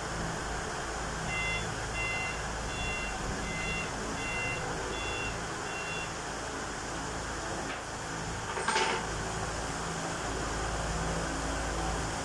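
Forklift reversing, its backup alarm giving about seven short, evenly spaced beeps over its engine's steady hum. A brief sharp knock about two-thirds of the way through.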